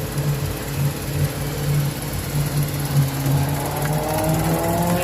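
Dodge Ram pickup's engine running under load in a mud hole, with a rising whine coming in about three seconds in.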